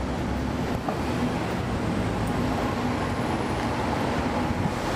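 Inside a 2009 NABI 40-foot suburban transit bus, its Cummins ISL9 diesel engine running steadily under road noise, with a constant low hum.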